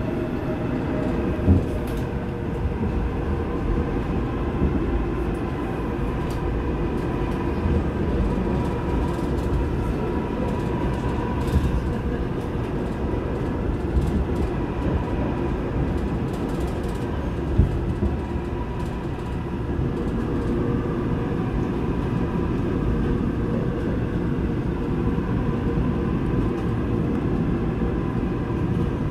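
Seoul Subway Line 8 train running at speed through a tunnel, heard from inside the car: a steady rumble from the wheels and rails with a steady whining hum over it, and a few sharp knocks.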